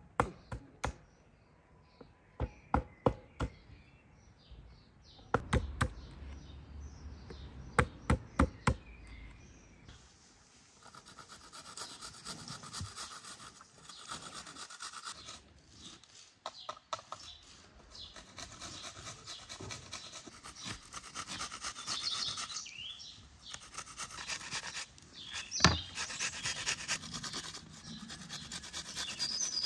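A series of sharp clicks and taps as cherries are pitted by hand over a plastic bowl. Then, from about ten seconds in, fruit being grated on a metal box grater: quick, steady scraping strokes, with knife taps on a chopping board.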